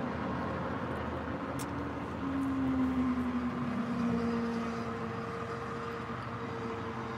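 Steady low rumble of a motor vehicle engine running, its hum sliding slowly lower partway through. There is a faint click about one and a half seconds in.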